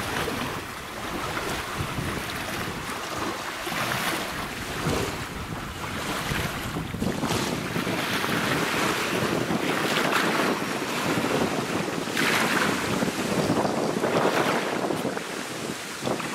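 Wind buffeting the microphone, a steady rushing noise that swells in gusts every few seconds.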